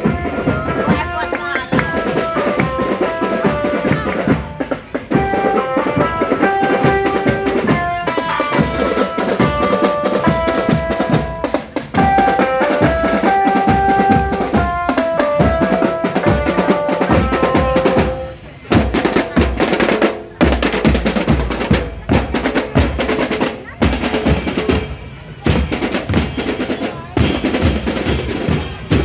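Marching drum band playing: snare and bass drums beating steadily, with a melody of held notes over them for the first two-thirds, then drums alone with snare rolls and short breaks between phrases.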